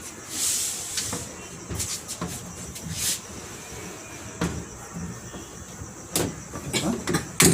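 Scattered knocks, clicks and short hissing rustles of a washing machine and its fittings being handled during installation.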